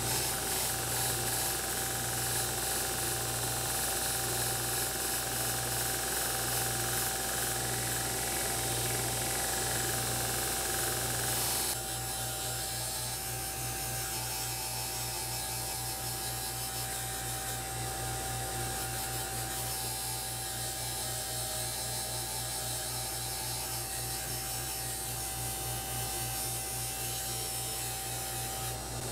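A bench belt grinder and a cordless drill run together as the drill spins a metal airgun part against the sanding belt. It is a steady motor hum with a steady tone and a slow pulsing beat. About twelve seconds in, the sound drops slightly and the pulsing gets faster.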